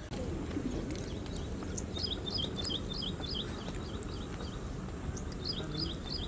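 A small bird calling: a quick run of short, high chirps, about six or seven a second, starting about two seconds in and coming again near the end, over a steady low background noise.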